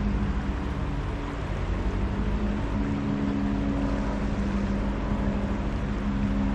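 Boat motor running steadily with a low hum whose pitch shifts a little about a second and a half in, over a low rumble.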